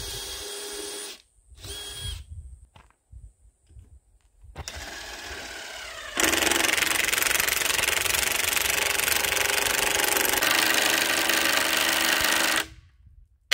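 DeWalt cordless drill driving into a timber gate post in several trigger pulls: short runs near the start, a longer one at about four and a half seconds, then a loud steady run of about six seconds that stops near the end, and a brief burst just after.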